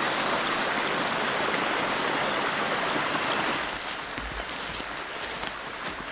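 Small rocky forest stream flowing, a steady rushing babble. About three and a half seconds in it drops to a quieter background with faint rustling and footsteps.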